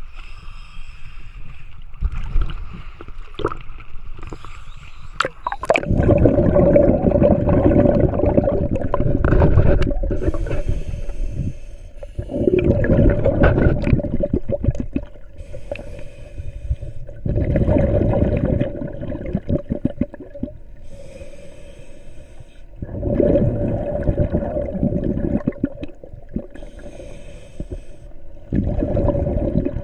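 Scuba diver breathing underwater through a regulator: loud bubbling exhalations about every five seconds, each followed by a short hiss of inhalation. For the first few seconds there is quieter water sloshing at the surface before the breathing starts.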